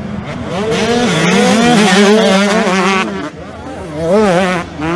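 Motor engine revving up and down, its pitch rising and falling continuously, with a brief lull about three seconds in before it revs again.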